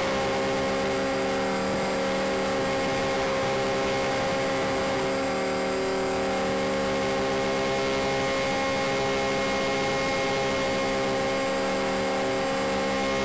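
Motors and propellers of a radio-controlled model C-124 Globemaster running steadily in flight, heard from a camera on board the model: an even hum of several steady tones over a hiss.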